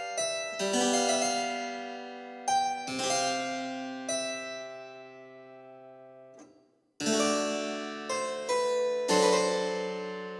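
Background music: a keyboard instrument plays chords that ring and die away after each strike. It fades nearly to nothing a little under seven seconds in, then starts again.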